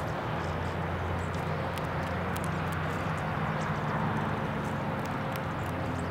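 A steady low drone of an engine running, holding one pitch, over even background noise, with faint scattered ticks.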